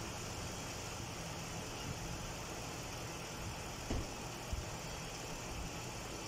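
Steady low hum of a running engine, with two short thumps about four seconds in.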